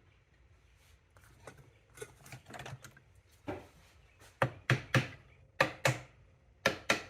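Metal gearbox parts of a Triumph 500 clicking and knocking as they are fitted together by hand: faint clicks at first, then about seven sharp knocks, several in quick pairs, from about three and a half seconds in.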